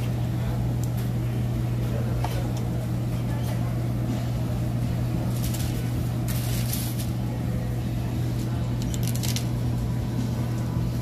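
Steady low hum of commercial kitchen equipment, with light scrapes and rustles as a spatula spreads sauce on toasted buns and the buns are set on a plate; a few short scrapes and clicks come around the middle and near the end.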